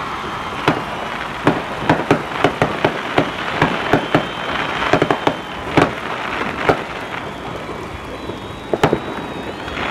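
New Year's fireworks going off all around: a continuous dense crackle with many sharp bangs scattered through, thickest in the middle.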